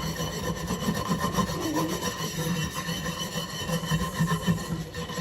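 Microwave turntable being scrubbed with soap and bleach spray, in rapid, steady back-and-forth rubbing strokes.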